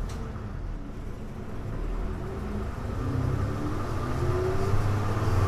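Hino Blue Ribbon city bus diesel engine pulling away from a stop, heard from inside the bus: the engine note climbs and grows louder as the bus accelerates.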